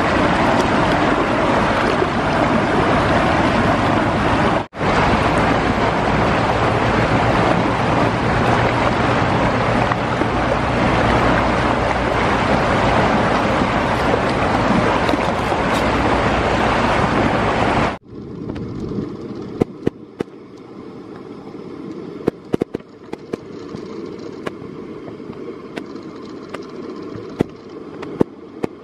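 Loud, steady rush of fast-flowing river water. After a break about 18 seconds in, the rush is quieter and lower, with scattered sharp clicks.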